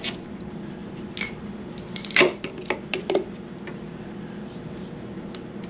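A few light metallic clinks and taps of hand tools and metal brake parts being handled, the loudest cluster about two seconds in and a few more just after three seconds.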